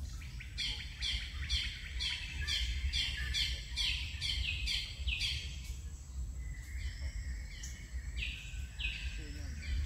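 A bird calling a quick series of short, falling notes, about three a second, which slows to a few spaced notes after about five seconds, over a steady low rumble.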